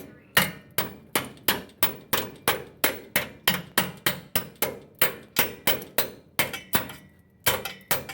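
Hammer blows on a metal part of the car, steady at about three strikes a second, a short pause near the end, then quicker blows.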